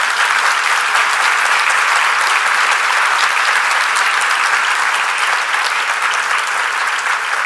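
A large audience applauding steadily: many hands clapping at once.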